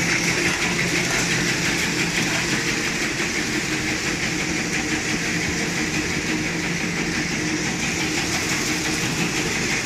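Automatic paper-straw packaging machine running steadily as it film-wraps bundles of straws: a continuous mechanical hum and hiss with faint rapid clicking.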